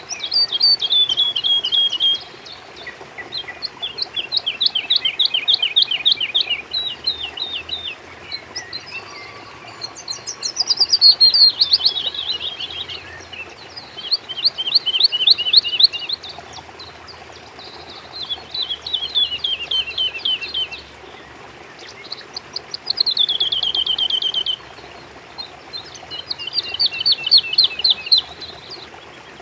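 Songbird singing: repeated phrases of quick, high, down-slurred notes, each phrase lasting about two to three seconds with short pauses between, over a faint steady background hiss.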